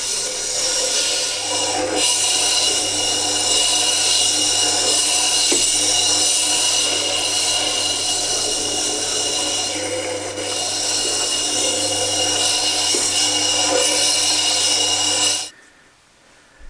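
Tormek T8 sharpener running with a coarse diamond wheel as a steel chisel is ground to a new bevel: a steady grinding hiss over the motor's low hum. It cuts off suddenly about fifteen seconds in.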